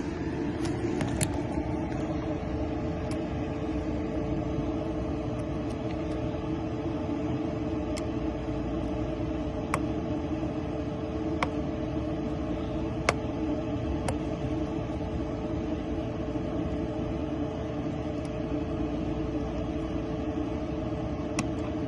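A vehicle engine idles close by with a steady hum. About eight sharp, light clicks are scattered through it as a Lishi pick works a Ford Mustang door lock.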